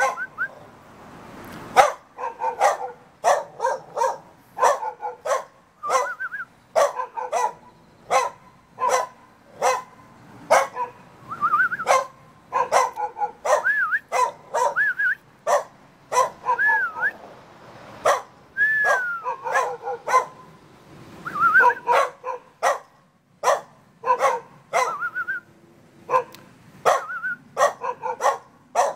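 Jindo dog barking over and over, about one to two barks a second, with high whining yelps that rise and fall in pitch mixed in.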